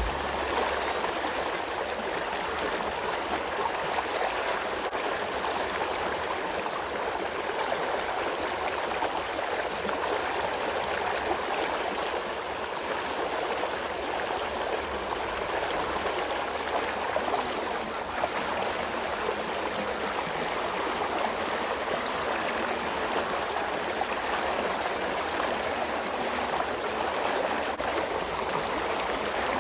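Creek water running steadily, a constant rushing with no breaks.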